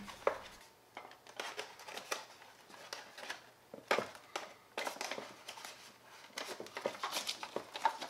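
Paper leaflets and a cardboard packaging tray rustling and scraping as they are handled, in a string of short, scattered rustles.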